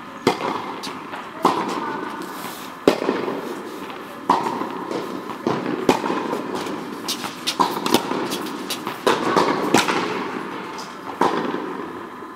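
Tennis balls struck by rackets: sharp pops about every second and a half, over steady background noise.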